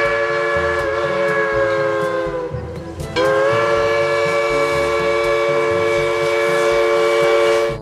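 Steam locomotive's chime whistle blowing, several notes at once, over a low rumble from the engine. The first long blast sags in pitch and dies away about two and a half seconds in; a second long blast starts about half a second later and holds until it cuts off sharply near the end.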